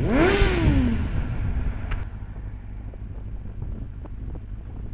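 Motorcycle engine revving up and falling back within about a second, over wind rush. It then settles into a lower, quieter running note with road and wind noise.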